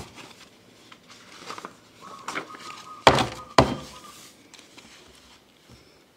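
Two sharp, heavy thuds about half a second apart, a little past the middle, with a faint steady tone around them.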